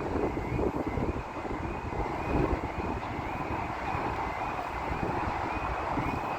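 Train passing over a level crossing, a steady rushing noise, while the crossing's warning alarm repeats short high tones about twice a second.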